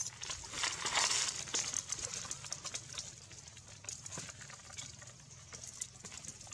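Dry leaves and twigs crackling and rustling under the monkeys as they shift on the forest floor, with a denser burst of rustling about a second in and scattered small crackles after.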